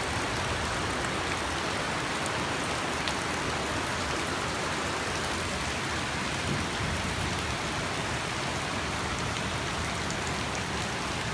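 Steady rushing water: an even, unbroken hiss without let-up, the sound of a heavy downpour or fast floodwater, with a few faint ticks in it.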